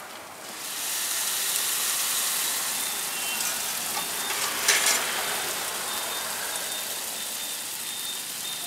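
Loud sizzling from a hot pan of tapioca and scrambled egg as ladled curry gravy hits it. The hiss swells about half a second in, flares sharply near the middle, then slowly eases off.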